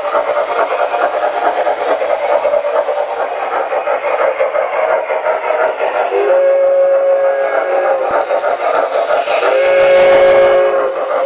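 MTH RailKing O-gauge Pennsylvania Railroad 2-8-0 steam locomotive running with its electronic sound system chuffing steadily over the clatter of wheels on the track. Two multi-note steam whistle blasts sound from the locomotive's speaker: a longer one about six seconds in and a shorter one near the end, as the engine passes close by.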